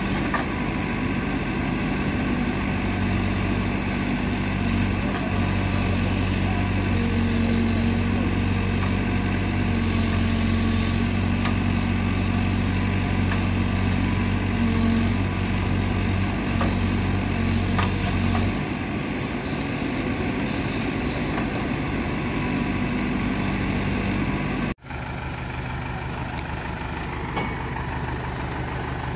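Heavy diesel engine of a backhoe loader or lorry running steadily under load, easing off about 18 seconds in. The sound drops out for an instant near the end, then an engine runs on a little more quietly.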